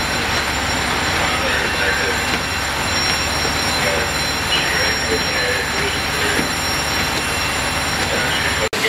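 Steady mechanical din of fire apparatus running at a fireground: a constant low engine drone with a steady high-pitched whine on top, and faint voices in the background.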